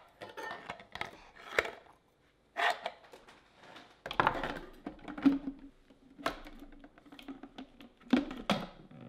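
Hard plastic knocks and clicks as a Vitamix blender container's lid is handled and pressed onto the container. A faint steady low tone runs through the middle.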